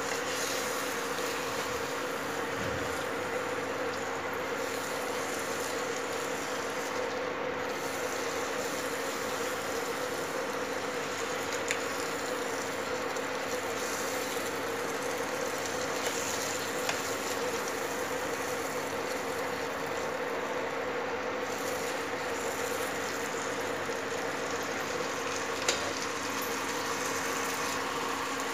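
Chopped tomatoes and spices frying and simmering in oil in a nonstick kadai, a steady sizzle over a steady low hum, with a few light clicks of a silicone spatula stirring.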